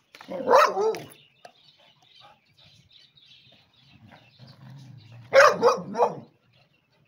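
A Labrador puppy and a beagle squabbling: a loud bark about half a second in, then a low growl that breaks into a quick run of three barks near the end.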